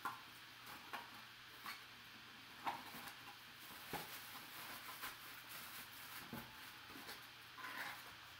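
Faint handling of a small white cardboard box and its wrapping: scattered short taps, clicks and rustles about a second apart, with a slightly longer rustle near the end.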